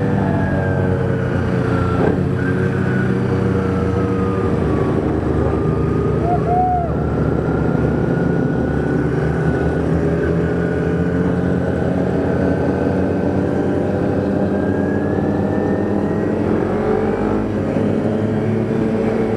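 Kawasaki Ninja 250R parallel-twin engine running steadily while riding, heard from a microphone inside the rider's helmet. Its pitch slowly falls over the first several seconds, holds, then climbs again with the revs.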